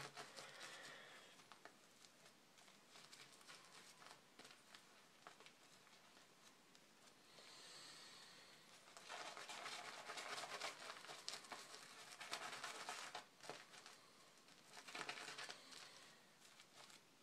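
Faint crackling squish of thick Razorock Fresco shaving-soap lather being scooped and squeezed in the hands, louder in stretches about halfway through and again near the end.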